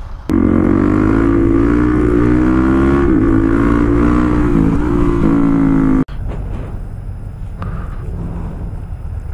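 Single-cylinder Suzuki motorcycle engine running steadily under way, loud and holding a fairly even pitch with small dips. It cuts off abruptly about six seconds in, giving way to a much quieter low rumble.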